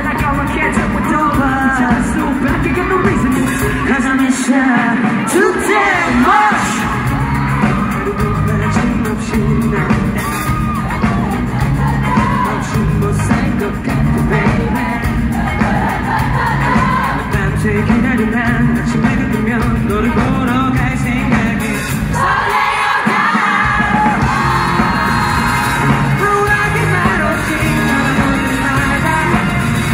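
Live pop-rock band playing, with a lead vocal over electric guitar and drums. The low end drops away briefly twice, about five seconds in and again a little past twenty seconds.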